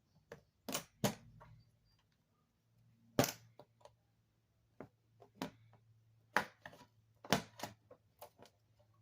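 Irregular sharp clicks and taps of small tools and phone parts being handled during an iPhone repair, about a dozen in all, over a faint steady low hum.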